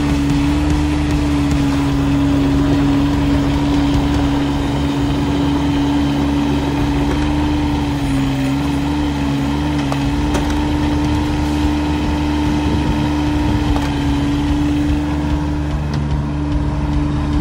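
Bobcat 325 mini excavator's diesel engine running steadily under a strong, steady whine that wavers slightly in pitch about halfway through, as the machine tracks and swings.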